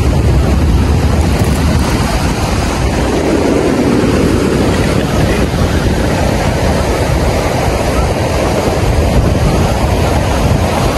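Loud, steady rush of wind buffeting the microphone together with surf breaking on the shore, with a deep rumble underneath.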